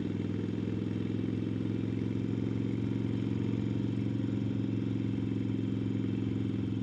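Harley-Davidson Sportster XL1200N's air-cooled 1200 cc V-twin running steadily under way, heard from the rider's seat.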